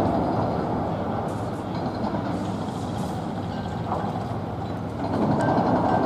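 Heavy diesel machinery running steadily, a low engine rumble that eases off about a second in and grows louder again near the end.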